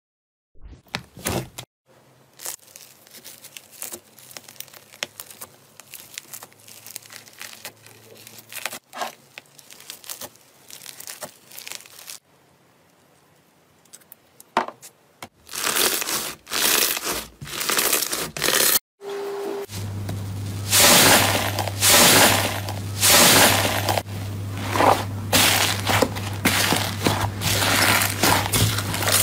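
Hands kneading, squeezing and pulling thick slime, making sticky crackles, small pops and tearing sounds. These are fainter in the first half and become much louder and denser about halfway through, where a steady low hum joins in.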